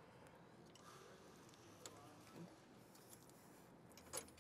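Near silence, with a few faint, small metal clicks from a tow bar hitch pin and its ring clip being handled and fitted; the clearest click comes near the end.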